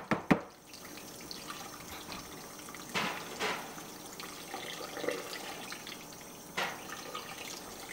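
Thick cake batter being scraped from a mixing bowl into cake pans: a few short, wet scrapes and plops, with a couple of knocks at the start.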